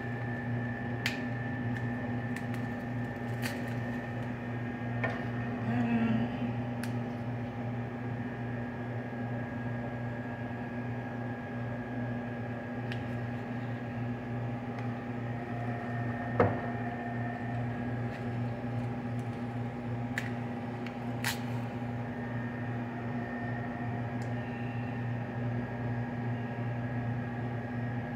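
Steady electrical machine hum, with scattered soft clicks and taps from butter packets being peeled open and butter spread on a baked potato with a knife; one sharper tap about halfway through.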